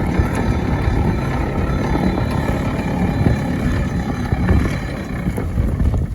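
Steam ploughing engine working: a loud, continuous mechanical rumble with a few steady higher tones over it.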